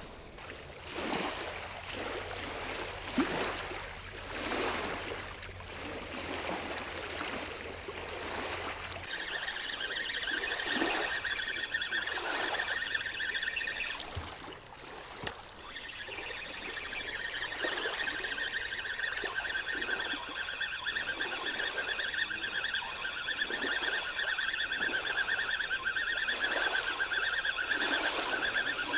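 Small waves lapping and trickling at the water's edge. From about nine seconds in, a steady high chirring of insects joins it, with a short break in the middle.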